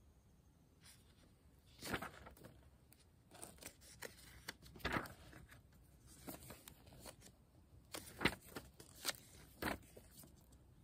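Pages of a book being turned and handled, a series of short, crisp paper rustles with the clearest about 2, 5, 8 and 10 seconds in.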